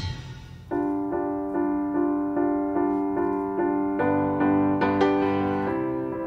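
Background music: a keyboard instrument, piano-like, repeating a steady pattern of notes about two or three a second, with lower notes joining about four seconds in.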